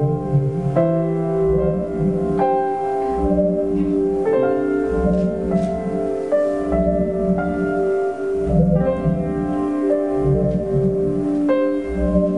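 Upright piano played slowly, single notes and chords struck every second or two and left to ring into one another, over a low rumble that comes and goes beneath.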